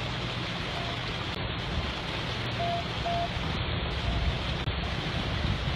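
A vehicle driving through a flooded road: a steady rush of floodwater and wind noise over a low engine and road rumble.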